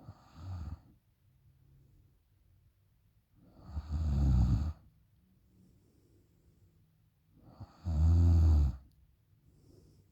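A woman snoring in her sleep: a short, quieter snore at the start, then two loud snores about four seconds apart.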